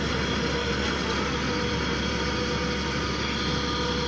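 Wheeled excavator's diesel engine running steadily while it drives a hydraulic earth auger, an even mechanical drone with faint steady tones over it.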